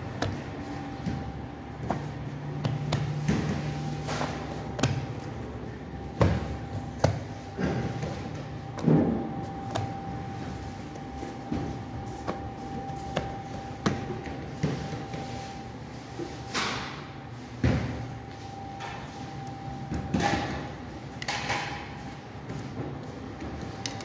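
Bakery work noise: a steady machine hum under scattered knocks, thumps and short clatters as dough is pressed and laid on metal baking trays.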